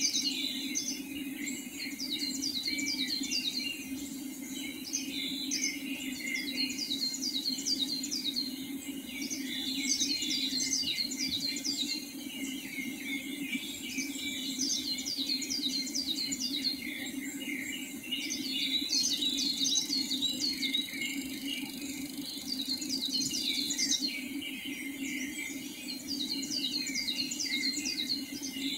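Birds chirping in a pre-dawn chorus: many quick, high, downward-slurred notes overlapping one another, over a steady low hum.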